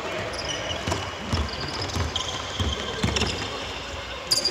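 Basketball being dribbled on a hardwood court, bouncing roughly twice a second, with sneakers squeaking on the floor now and then.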